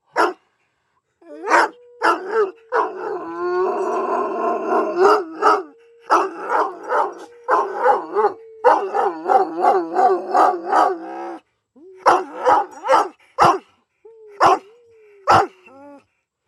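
Irish Wolfhound howling in long held notes, with short sharp barks cutting in throughout. The long howl breaks off about eleven seconds in, and a shorter wavering howl follows among more barks.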